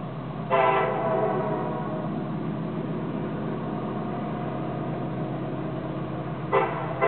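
Diesel freight locomotive air horn sounding a long blast that starts about half a second in, loudest at first, then a short blast near the end, over the steady rumble of the locomotives' engines.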